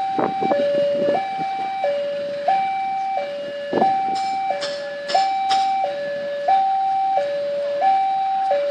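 Railway level-crossing warning alarm sounding, an electronic two-tone signal alternating steadily between a lower and a higher tone, each held about two-thirds of a second, warning that a train is approaching. A few short sharp clicks or knocks sound over it, mostly around the middle.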